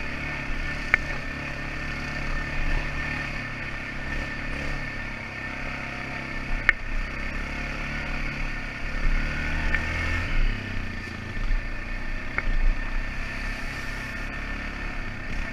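Quad ATV engine running along a trail, the throttle rising and easing off, with a few sharp clicks over the engine noise.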